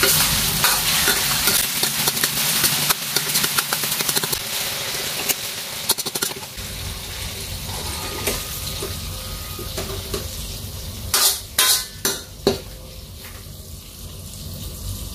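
Cornstarch-coated chicken breast pieces sizzling as they fry in hot oil in a wok, with a metal ladle scraping and clinking against the pan as they are stirred and scooped out. The sizzle thins out as the pieces come out, and a few sharper knocks of the ladle on the wok come near the end.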